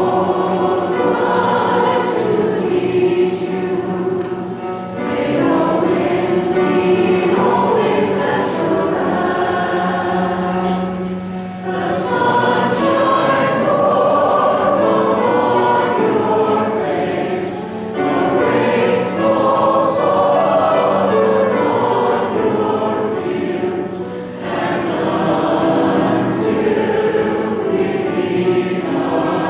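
A group of voices singing a hymn together, in long phrases with short breaks between them about every six seconds.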